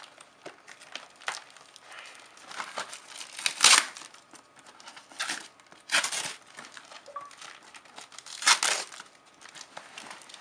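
Packaging being torn open by hand, crinkling and rustling, with three louder rips about a third, halfway and four-fifths of the way through.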